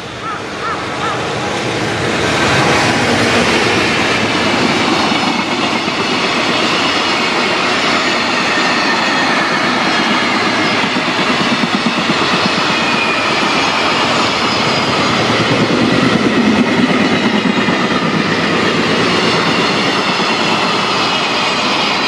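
A JR Freight container train passing close by behind an electric locomotive: the rush of wheels and rail noise builds over the first two seconds, then holds loud and steady as the long line of container wagons clatters past over the rails.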